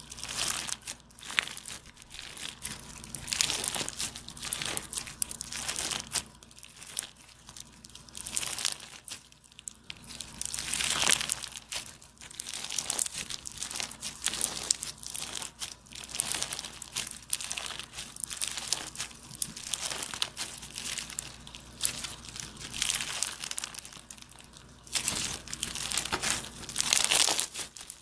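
Squishy stress ball filled with gel water beads being squeezed and rubbed in the hands: irregular crinkling, crackly squishing noises coming one after another, with louder squeezes about eleven seconds in and again near the end.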